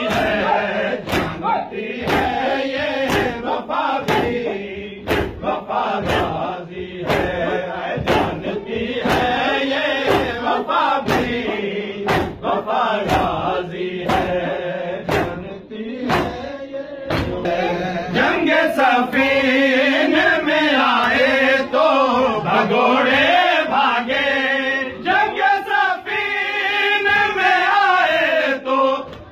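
A group of men chanting a noha (Urdu lament) in unison, with sharp rhythmic chest-beating (matam) about twice a second. About halfway through the beating fades out and the chanting goes on alone.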